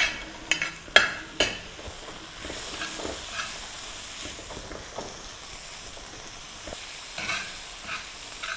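Vegetables and paneer being mashed in a sizzling masala on a hot tawa: four sharp knocks of the utensil against the pan in the first second and a half, then steady sizzling with soft mashing and scraping.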